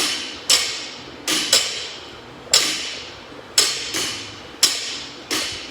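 Loaded barbell knocking on the gym floor with each deadlift rep: about eight sharp knocks at an uneven pace, each followed by a ringing tail in a large echoing room.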